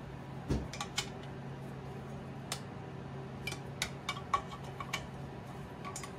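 Scattered metal clicks and clinks of an offset wrench working the bolts of an old drill press motor being taken apart, at uneven intervals over a steady low hum.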